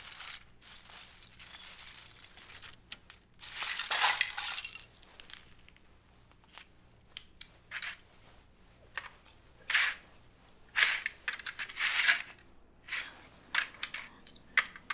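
Loose plastic Lego bricks clattering as hands rummage through a pile. There is a longer, louder clatter about four seconds in, then scattered short clicks as bricks are picked out and fitted together.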